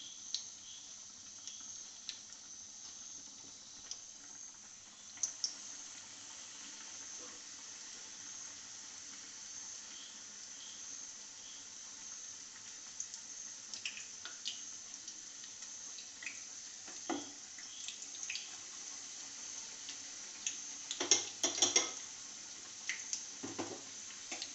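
Batter-coated jackfruit bulbs deep-frying in hot oil: a steady high sizzle with scattered pops and crackles, and a burst of louder crackling near the end.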